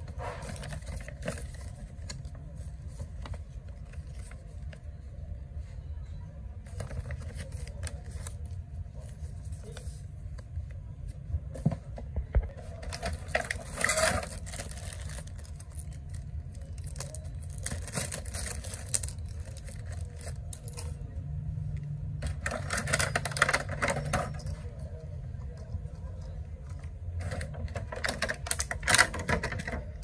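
Handling noises as an RC car is unpacked: a paper instruction leaflet rustling and a small clear plastic bag crinkling, in short irregular bursts over a steady low hum.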